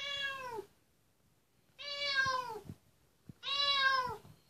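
Domestic cat meowing three times, each meow under a second long and dropping in pitch at its end.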